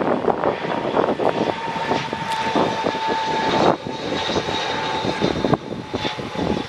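Airbus A319 jet airliner on final approach: steady rushing jet engine noise with a thin whine in it, buffeted by wind on the microphone. The level drops abruptly about halfway through and again near the end.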